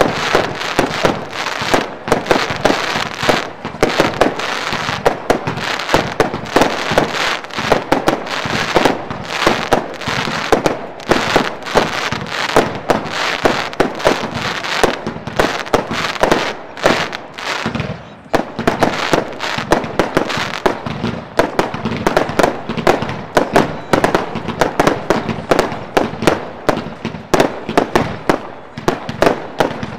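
Lesli "King of the Jungle" 180-shot compound firework cake firing a rapid, continuous barrage of shots and bursts, several a second, easing slightly a little past halfway before picking up again.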